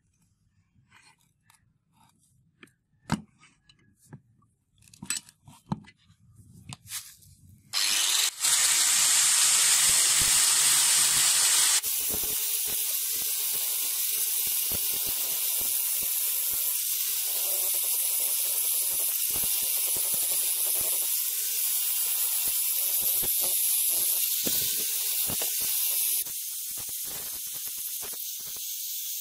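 A few light metal clicks and taps as the hammer is set in the vise, then about eight seconds in an angle grinder starts and its abrasive disc grinds the rusty steel hammer head with a loud, steady hiss. From about twelve seconds the motor's pitch wavers as the disc is pressed onto the metal.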